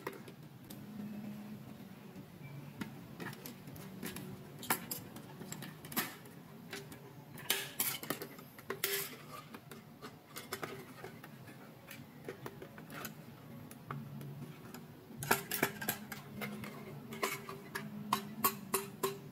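Hard plastic parts of a toy doll crib clicking and clattering as they are handled and fitted together, in irregular taps with busier runs of clicks around the middle and near the end.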